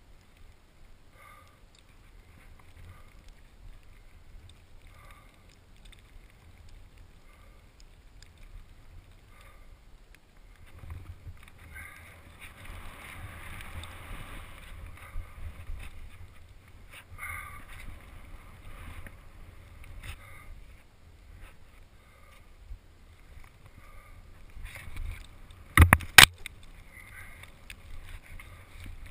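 A person breathing heavily with exertion over a steady low rumble, with a louder stretch of rushing noise around the middle and two sharp knocks in quick succession near the end.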